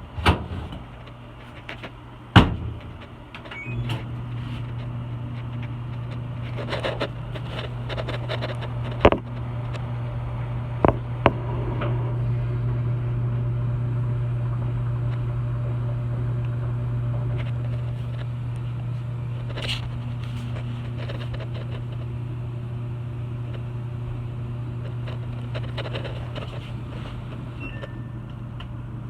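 A few sharp knocks and clicks, then a steady low electric motor hum starts about four seconds in and keeps running, with a few more clicks over it.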